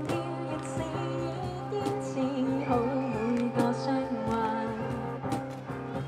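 Live music: a woman singing a slow pop song over a strummed acoustic guitar, both played through a small amplifier.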